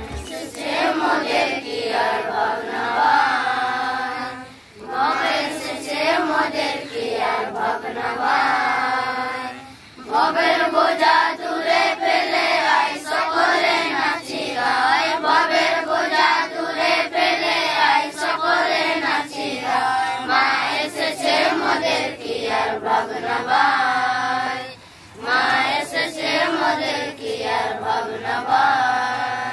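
A group of children and men chanting a sung prayer together in unison, in long phrases with short pauses between them.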